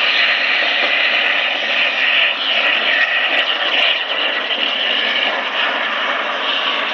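SPRAYtec UMAP 60 water-mist cannon running: a loud, steady rush of its fan and spray.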